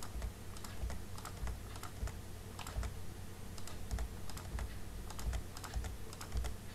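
Computer keyboard keys tapped in quick, irregular succession, a few clicks a second, as digits are deleted from a table. A faint steady hum lies underneath.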